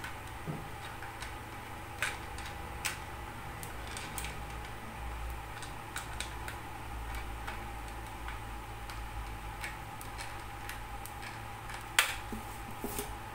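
Small metal clicks and ticks as multi-tool pliers grip and turn the nuts of antenna connectors on a plastic router panel, with a louder click about twelve seconds in.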